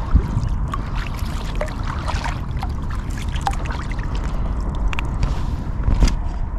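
Water trickling and splashing around a moving kayak, with small irregular drips and clicks over a steady low rumble.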